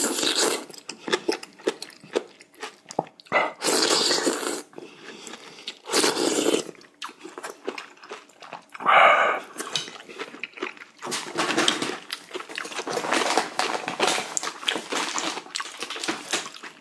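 Close-miked eating sounds of a person working through spicy jjamppong noodle soup with rice: loud slurping and chewing in several bursts, then a longer run of quick slurps and chews in the second half.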